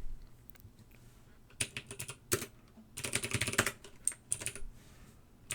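Typing on a computer keyboard: a quick run of keystrokes, a pause, then a longer flurry of keys.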